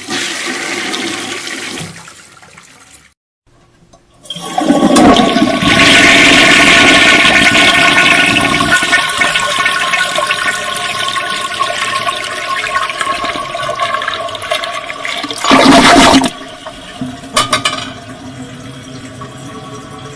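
Toilet flushing: a brief rush of water that dies away, a short pause, then a loud rush of water a few seconds in that slowly eases. A short loud burst comes near the end, followed by a quieter, steadier run of water.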